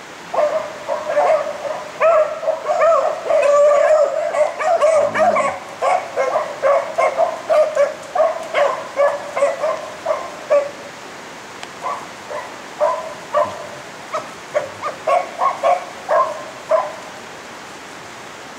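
A pack of beagles baying and yipping as they run a rabbit on scent. The chorus of short, high calls is dense at first, thins out after about ten seconds and stops shortly before the end.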